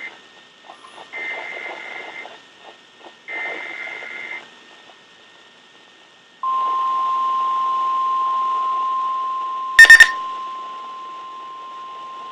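Emergency Alert System SAME header on weather radio: rasping two-tone data bursts about a second long, repeated with short gaps. They are followed by the steady single-pitch 1050 Hz warning alarm tone that announces a new flash flood warning. A brief, very loud crackle breaks in about ten seconds in, and the tone is quieter after it.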